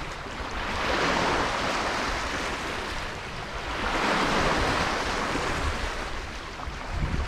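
Waves washing against a jetty in two slow swells, over a steady hiss of rain and wind.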